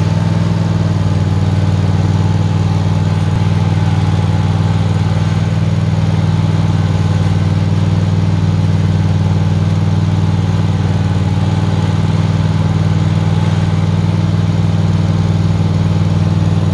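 Toro lawn mower's small engine running steadily at a constant speed.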